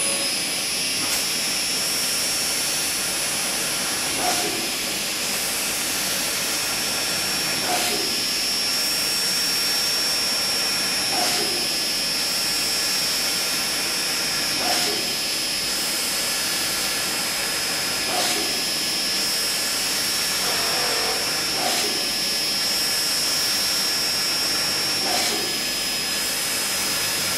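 Machine spindle drilling steel with a Dormer R457 solid carbide drill under coolant spray: a steady hiss with a high, even whine. The sound changes briefly about every three and a half seconds as the drilling cycle repeats hole after hole.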